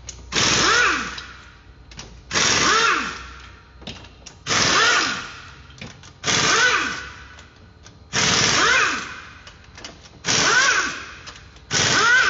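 Pneumatic wrench loosening the cylinder head bolts of a Fiat Fire Evo engine, in seven separate bursts about two seconds apart. Each burst starts sharply and winds down with a falling pitch.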